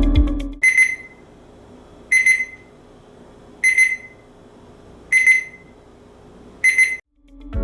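ETI Thermaguard-102 digital fridge thermometer's alarm beeping: five high-pitched clusters of quick beeps, about one every second and a half. The alarm signals that the temperature has gone outside the set range.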